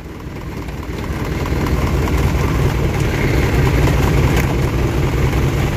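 Vehicle engine idling steadily under a dense hiss of heavy rain, which grows louder over the first two seconds and then holds.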